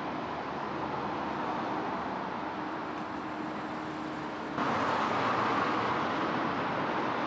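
Steady background noise like street or traffic ambience, with no distinct events. It steps up suddenly in level about four and a half seconds in, as if at a cut, and continues steady and louder.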